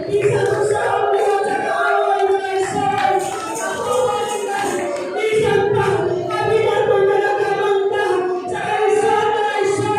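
A church choir sings a gospel song in several voices, holding long sung notes.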